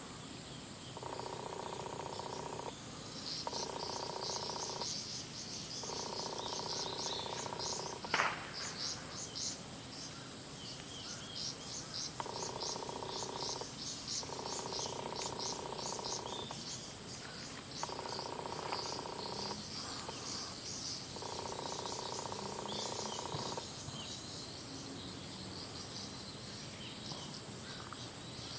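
Insects chirping in a fast, pulsing high trill. Through it runs a repeated steady droning call, each phrase about two seconds long with short breaks. A single sharp knock sounds about eight seconds in.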